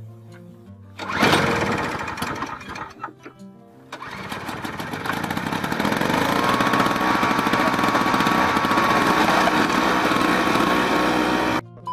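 Small snowblower engine running steadily from about four seconds in, with a thin whine on top, after a loud burst about a second in that fades away; it cuts off abruptly shortly before the end. A few notes of background music come first.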